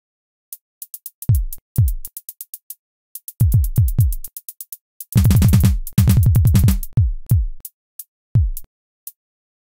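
Electronic drum-machine beat: short ticking hi-hats and deep kick drums that drop in pitch. A fast roll of kicks and hi-hats in the middle is the loudest part.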